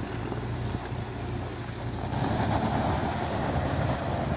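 2017 Toyota 4Runner's V6 engine working under load, the tyres digging into loose, muddy gravel on a slope without climbing, growing louder about two seconds in. The rear locker and A-TRAC are engaged, but the stock tyres lack traction.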